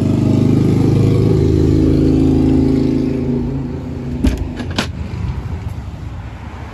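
A motor vehicle engine running steadily, then fading away between about three and four seconds in. It is followed by two sharp knocks about half a second apart.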